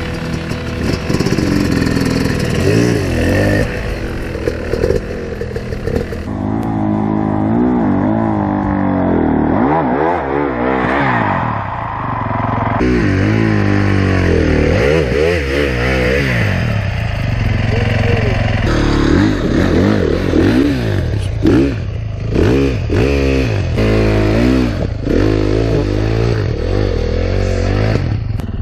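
Enduro dirt bike engines revving up and down again and again, the pitch rising and falling with each blip of the throttle, as the bikes work a steep rocky trail section. In the last third, sharp knocks and clatter come between the revs.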